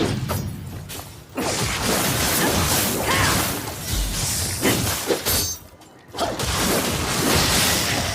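Kusarigama (chain-sickle) sound effects: dense clattering, shattering crashes with swishes. They come in three long stretches, broken by short pauses just after a second in and near six seconds.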